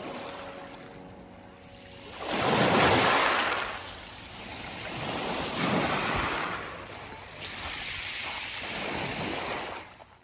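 Small waves washing up onto a pebble shore, surging in three swells and fading out near the end.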